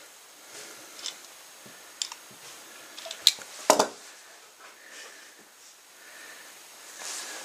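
Steel pliers and a thread tap clicking and clinking together as the tap is unscrewed from a camera's plastic mount thread. A few separate sharp clicks, the two loudest close together about three and a half seconds in.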